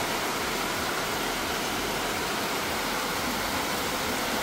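Heavy rain falling in a steady downpour, an even hiss with no breaks.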